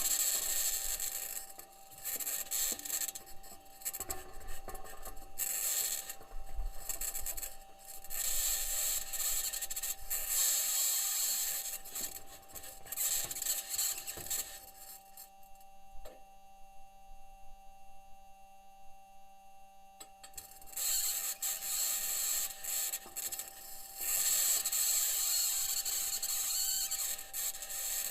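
Perseverance rover's metal wheels grinding and scraping over Martian rock, heard through the rover's microphone as uneven rasping bursts over a steady tone, with a lull of about five seconds midway.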